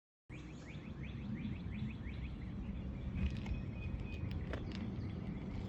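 A bird calling in a quick series of short falling notes, about four a second, over a steady low outdoor rumble; the calls give way to a few faint clicks.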